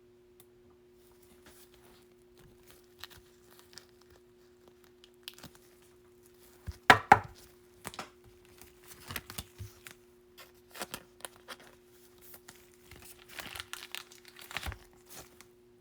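Trading cards being handled in plastic penny sleeves and top loaders: intermittent rustling, crinkling and light clicks, with a louder crackle about seven seconds in. A faint steady low hum runs underneath.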